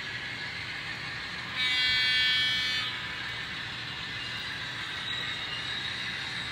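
HO scale model freight train running steadily along the track, with one horn blast of about a second from the locomotive's sound unit, about one and a half seconds in.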